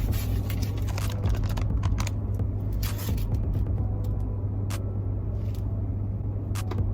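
Steady low hum of a car cabin with the engine running, with scattered clicks, scrapes and rustling of sandwich wrappers and sauce packets being handled.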